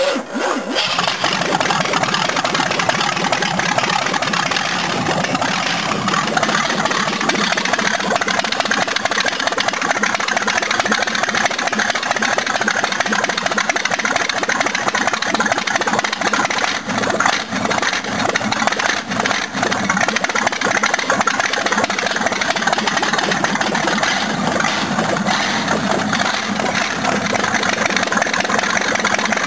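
GMH 350 (5.7 litre) V8 being cranked on the starter from cold after its carburettor was primed with fuel, turning over steadily without settling into a clean run.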